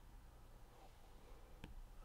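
Near silence: faint room tone, with a single faint click a little past halfway, a stylus tapping a drawing tablet while a graph is sketched.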